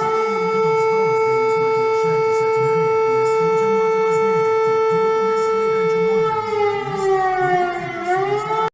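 Emergency alert siren tone, like a civil defense siren: it holds one steady pitch, slides down about six seconds in, rises briefly again and then cuts off suddenly. A lower wavering tone runs underneath.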